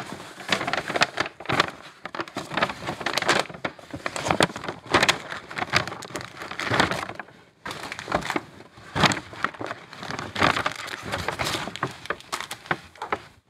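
Brown paper shopping bag crinkling and rustling as hands rummage in it and lift out packaged items, in quick bouts with brief lulls.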